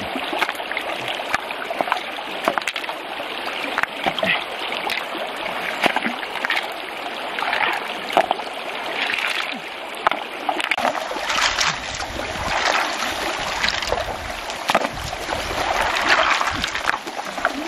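Shallow river water splashing and stones knocking together as hands shift rocks in the streambed, over the steady rush of the stream.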